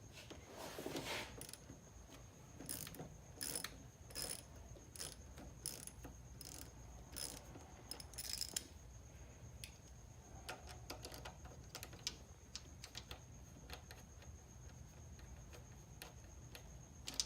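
Small ratchet with a 10 mm socket clicking in short, irregular runs as the positive battery terminal's clamp nut is loosened. The clicks are faint and come thicker in the first half, sparser later.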